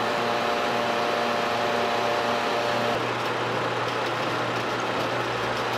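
Steady mechanical running noise from an automatic transmission fluid exchange machine pumping fluid through a car's transmission while the car's engine idles. A higher hum in the mix cuts out about three seconds in, leaving a lower steady hum.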